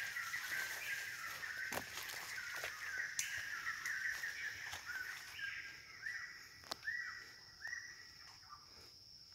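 Forest birds calling: a quick run of short, similar notes, then a few separate rising-and-falling notes later on, over a steady high insect whine. A few sharp clicks cut in, and the whole soundscape slowly grows fainter.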